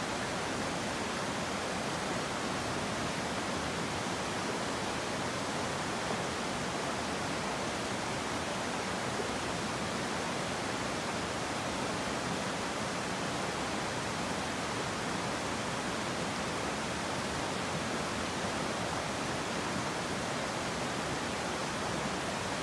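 Steady rush of river water, an even noise with no breaks or changes.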